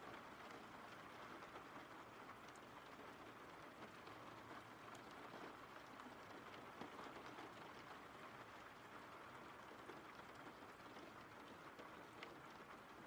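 Faint, steady rain: an even hiss with scattered light ticks of drops.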